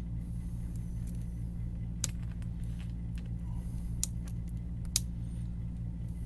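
A few sharp clicks and ticks of a small metal extraction tool working at a laptop's headphone jack, trying to grip a broken plug stuck inside. Three clicks stand out, about two, four and five seconds in, the last the loudest, over a steady low hum.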